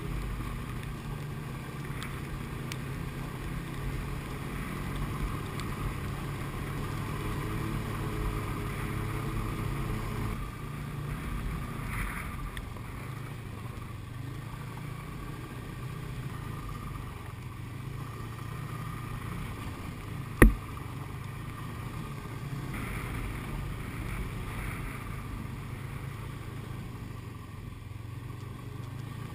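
Snowmobile engine running steadily as the sled rides along a snowy trail, heard close up from a camera mounted on the machine. The engine note drops and settles about ten seconds in. A single sharp knock about two-thirds of the way through is the loudest moment.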